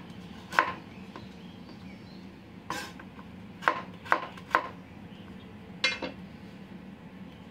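Chef's knife chopping carrot into cubes on a wooden cutting board: a handful of separate sharp knocks at uneven intervals, over a low steady hum.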